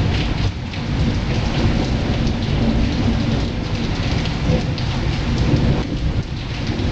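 Heavy rain falling steadily, with a low rumble of thunder running underneath.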